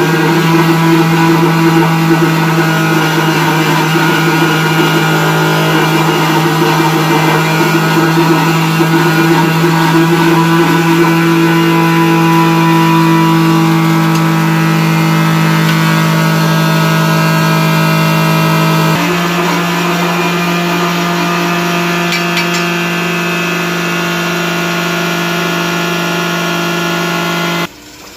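Mortar cube vibration machine running: an electric motor belt-drives the vibrating table, shaking the mortar-filled cube mould to compact it and drive out air bubbles. It is a loud, steady mechanical drone that changes slightly about two-thirds of the way through and cuts off suddenly just before the end.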